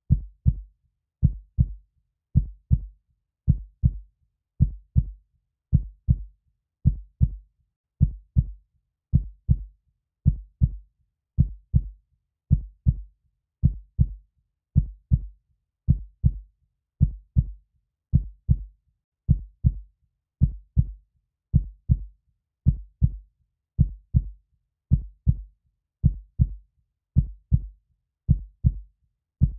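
Heartbeat sound: a steady lub-dub, two low thumps in quick succession repeating about once a second at an even pace.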